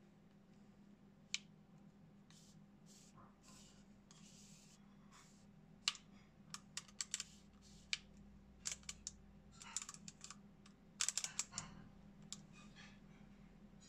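Aperture ring of a Nikon Micro-Nikkor-P Auto 55mm f/3.5 lens turned by hand, clicking through its f-stop detents in short irregular runs of sharp clicks. Softer scraping of fingers on the lens barrel comes between them.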